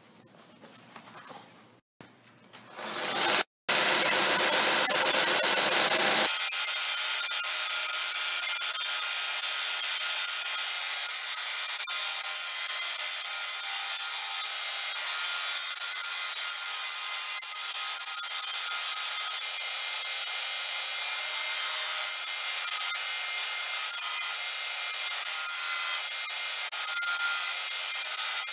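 Narrow vertical belt sander started about three seconds in and coming up to speed, then running steadily as a small cast-metal charm is pressed against the belt. The grinding swells briefly every couple of seconds near the end.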